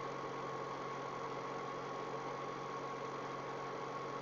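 Steady background hum and hiss with a few constant tones, unchanging throughout.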